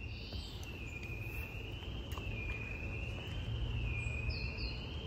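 Steady high-pitched insect drone that wavers slowly up and down in pitch about every second and a half, over a low rumble. Two short faint chirps sound near the end.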